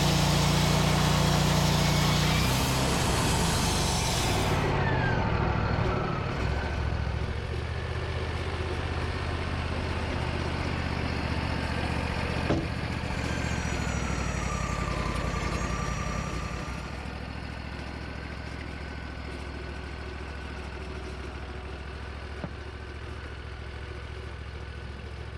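Sawmill engine running hard with a high hiss that stops about four seconds in, then throttled back, its pitch falling over a couple of seconds, and settling to a steady idle that drops quieter again about 16 seconds in.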